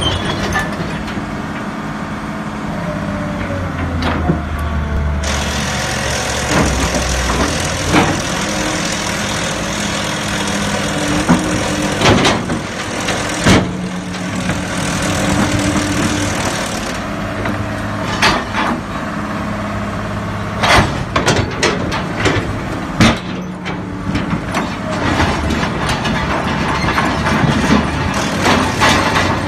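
Caterpillar E200B crawler excavator's diesel engine running and changing pitch as the boom, arm and bucket are worked. A steady hiss sits over it for about ten seconds in the middle, and from about two-thirds of the way through there is a run of sharp metallic clanks and knocks.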